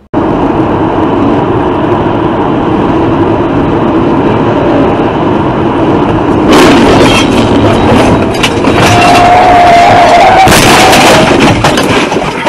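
Loud road and wind noise inside a moving car, picked up by a dashcam microphone. About six and a half seconds in, a run of sharp bangs and rattles starts, with a brief wavering squeal a few seconds later.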